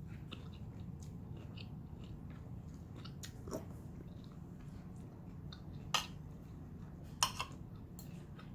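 A person eating close to the microphone: chewing and biting with small wet mouth clicks, and a few sharper clicks about 6 and 7 seconds in.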